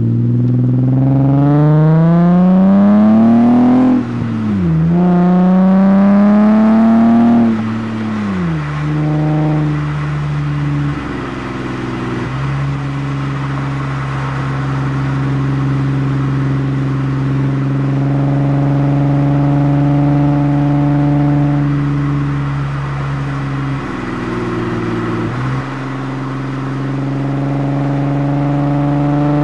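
Exhaust of a 6th-generation Nissan Maxima's 3.5-litre V6 fitted with Dynomax and Magnaflow parts, heard from right at the tailpipe. The engine accelerates hard with the pitch climbing, drops at an upshift about four seconds in, and climbs again. It then eases off to a steady cruise for most of the rest and picks up again near the end.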